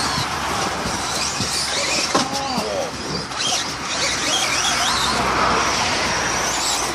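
Traxxas radio-controlled car driving: a high motor whine that rises and falls in pitch over a steady rushing noise.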